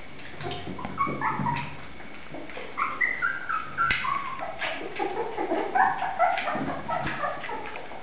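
Three-week-old puppies whining and squeaking, a string of short high-pitched whimpers one after another.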